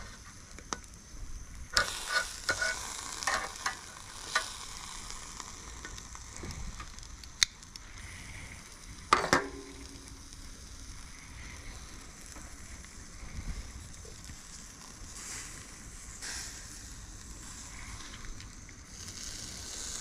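Softshell crabs sizzling on a hot charcoal grill grate, with metal tongs clicking against the grate several times in the first few seconds. About nine seconds in, there is a loud, ringing metal clank as the tongs are set down on the grill's metal side shelf.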